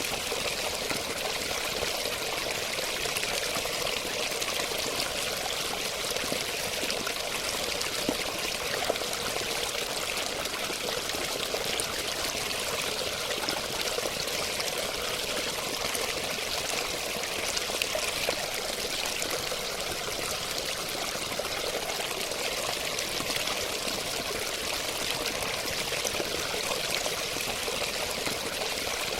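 Running water pouring and splashing in a steady, unbroken rush, with no change in flow.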